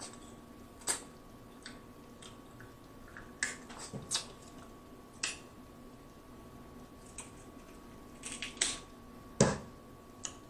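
Eating snow crab legs by hand: scattered sharp snaps and smacks of shell, fingers and lips, with a louder knock about nine seconds in, over a faint steady hum.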